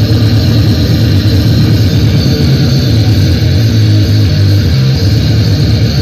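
Sound-system speaker stack playing deep bass at high volume for an SPL test, very loud and steady, with the low end dominating.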